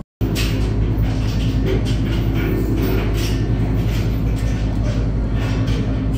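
Riverboat engine running, a steady low drone with fixed low tones under a wash of higher noise. It cuts in after a moment of silence.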